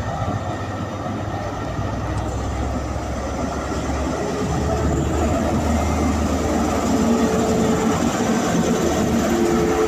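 Class 43 HST power car's MTU diesel engine running, its low drone growing steadily louder as power is applied to pull the train away.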